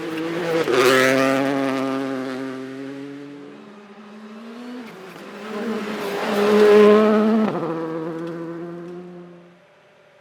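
Rally car engine driving past at speed, loud twice: about a second in and again near seven seconds. The engine note steps up and down in pitch between the two peaks and fades away near the end.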